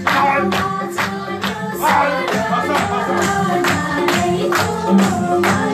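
A song with singing over a steady, quick beat, played loud.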